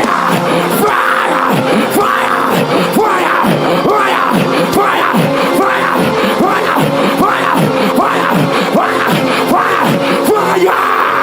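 A man praying loudly in rapid, unintelligible syllables, typical of speaking in tongues, over sustained keyboard chords, with a congregation praying aloud behind.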